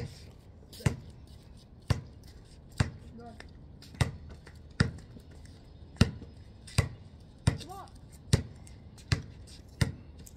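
Basketball dribbled on a concrete driveway: about a dozen sharp bounces at a steady pace, roughly one a second. Two brief voice sounds come in between, about three seconds in and near eight seconds.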